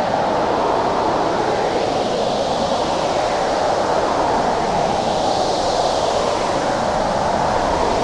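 Howling blizzard wind: a steady rush with a low moaning band, and hiss swelling and easing in gusts every couple of seconds.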